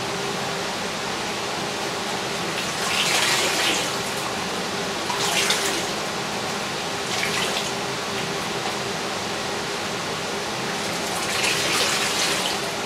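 Water splashing back into a tub as handfuls of soaked granulated stone wool grow medium are lifted and squeezed out: four bursts, about three, five and seven seconds in and a longer one near the end, over a steady background noise.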